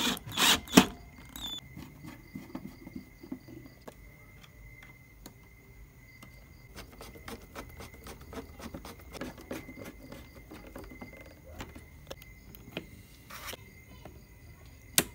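Cordless drill-driver briefly driving a breaker's screw terminal, two short loud bursts in the first second. Then small clicks and scrapes of wire handling, over a faint steady high tone, and one sharp snap near the end as side cutters clip a zip tie.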